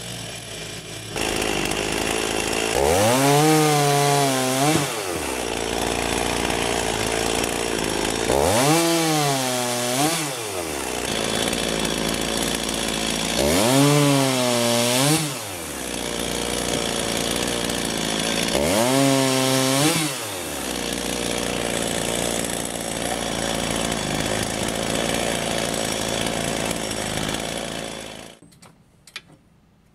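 Gasoline chainsaw cutting through logs held in a steel cutting jig. The engine revs up and falls back four times, about five seconds apart, with a steady saw noise in between, then fades out near the end.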